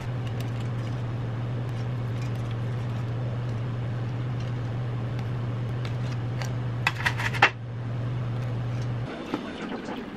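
A steady low hum, like a running kitchen appliance, that stops about nine seconds in, with a short burst of clinks and rattles about seven seconds in.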